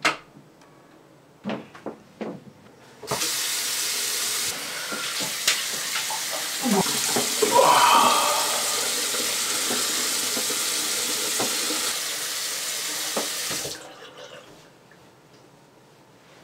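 Bathroom sink tap running for about ten seconds while water is splashed on the face, then shut off abruptly. In the middle comes a short rising cry, the loudest moment. A sharp click and a few soft knocks come before the water starts.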